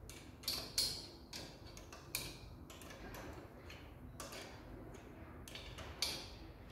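Small open-ended spanner clicking against the nut and steel flange as it is worked round a few turns at a time, tightening the exhaust downpipe to the manifold. About seven or eight light, irregular metallic clicks, the sharpest about half a second in, just after two seconds, and near the end.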